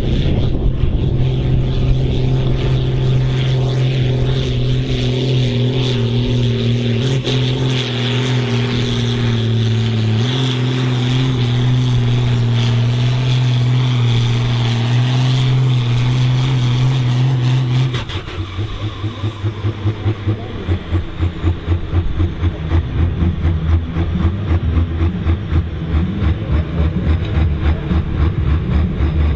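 New Holland 8970's six-cylinder diesel running flat out at steady high revs under full load, pulling a weight sled. About 18 seconds in the pull ends and the engine drops suddenly to a slow, evenly pulsing idle.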